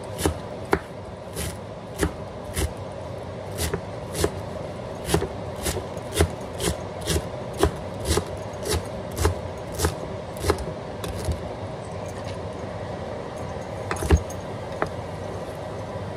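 Chef's knife chopping fresh cilantro on a wooden cutting board: sharp knocks of the blade on the board about twice a second, thinning out after about 11 seconds, with one loud knock near the end. A steady hum runs underneath.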